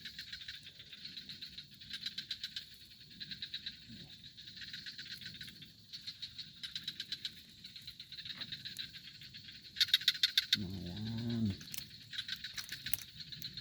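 Frogs calling in rapid pulsed trills, repeating in bursts of about a second each. A short, low call comes in about ten seconds in.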